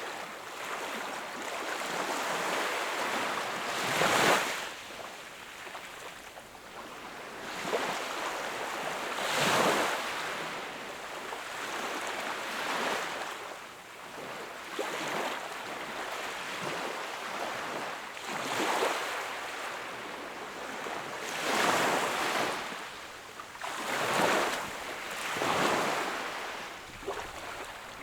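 Sea waves breaking and washing onto the shore, a hissing surge that swells and falls every few seconds, with the loudest breakers about 4, 9, 18, 22 and 24 seconds in.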